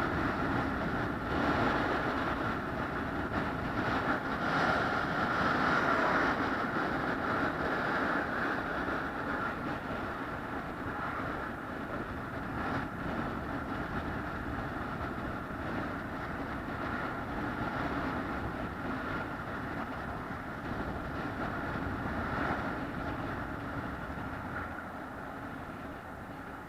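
Steady running noise of a moving vehicle, an even rumble with a constant mid-pitched hum, slowly growing quieter.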